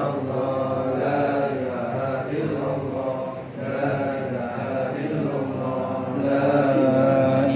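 A voice chanting Islamic recitation in Arabic, drawing out long, held, wavering notes with slow melodic turns, a little louder near the end.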